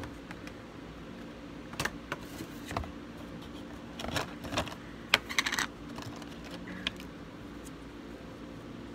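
Small plastic clicks and taps as a doll's tiny plastic shoes are handled and pushed onto its feet, coming irregularly, with a quick cluster a little past the middle.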